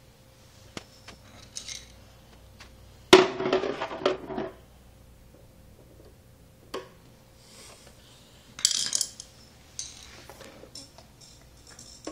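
Metal screwdrivers clinking and scraping against a plastic toy tricycle and a tile floor: scattered light clicks, with a loud clatter lasting about a second and a half some three seconds in, and a short scrape near the end.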